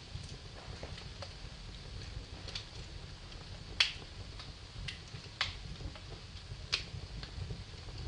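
Wood fire in a fireplace crackling: scattered sharp pops, the loudest about four seconds in and two more strong ones near the end, over a low steady rumble.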